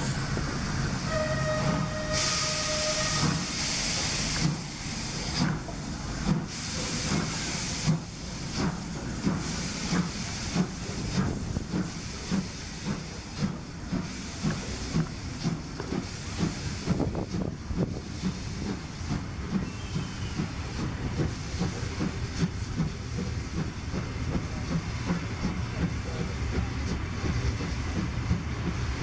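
DR class 41 steam locomotive 41 096 sounds a short whistle of about two seconds, with a loud hiss of steam, as it starts its passenger train. It then pulls away with steady exhaust chuffs that come faster as it gathers speed, while steam hisses from the open cylinder drain cocks.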